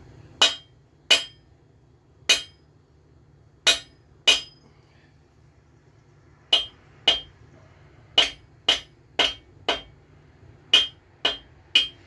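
About fifteen sharp metallic taps with a short ring, in irregular groups. They come from a main bearing cap on a GM 4.3L V6 block being knocked loose from the locating grooves it sits in.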